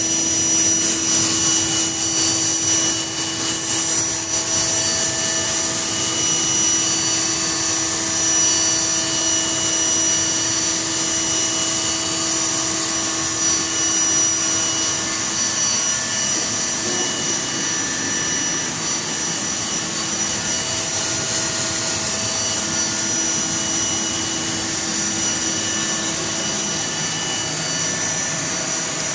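Home-built gas-fired fluid bed coffee roaster running mid-roast: its hot-air blower and gas burner make a steady rushing whine, with several steady high-pitched tones over the noise.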